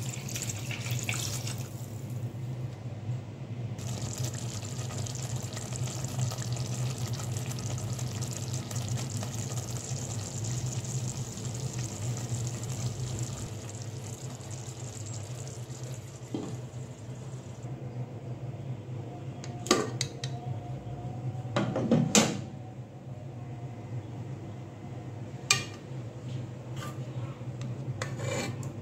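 Water poured from a steel mug into a pot of thick curry, followed by a steady hiss as the curry simmers on a gas stove, over a steady low hum. Later a few sharp metal clinks of a steel ladle against the aluminium pot.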